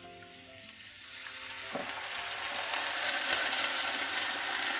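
Milk mixed with cornflour poured into a hot oiled frying pan of sautéed onions, sizzling. The sizzle starts about a second in and grows steadily louder.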